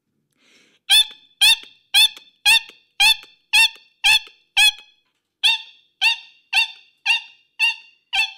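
A high-pitched, squeaky cartoon-style laugh, one short 'ha' about every half second, with a brief gap about halfway through and fading toward the end.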